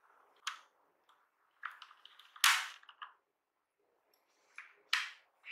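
Sharp clicks and knocks from a compact mechanical keyboard being handled and lifted, with one loud knock about halfway through and a few lighter clicks before and after.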